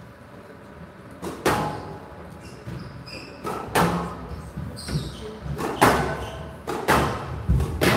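Squash rally: about five sharp cracks of the ball striking rackets and the court walls, one every one to two seconds, with short shoe squeaks on the court floor in between.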